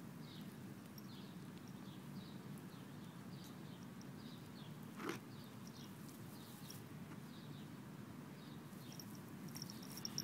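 Quiet outdoor background with a faint high chirp repeating about twice a second, and one short click about five seconds in.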